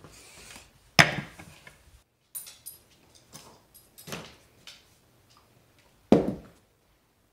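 Scattered knocks and thumps of a dog moving about with a hard chew toy on a wooden floor. The loudest is a sharp knock about a second in, with another heavy thump near the end.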